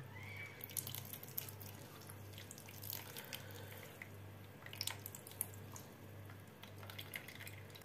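Juice dripping and trickling from handfuls of salted grated zucchini squeezed by hand into a plastic bowl, in faint scattered drips and small splashes.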